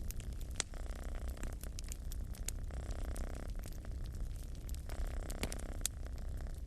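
A cat purring with a steady low rumble that swells and eases about every second, over the snaps and crackles of a fire burning in a fireplace.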